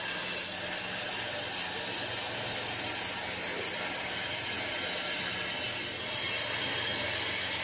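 CNC plasma cutter's torch cutting through 6 mm steel plate: the plasma arc gives a steady, even hiss with a faint low hum beneath it as it cuts out a round hole.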